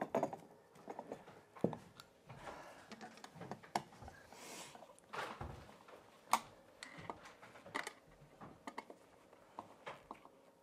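Irregular light clicks and taps of a screwdriver and metal floor-box hardware being worked by hand, with a brief rustle about four and a half seconds in.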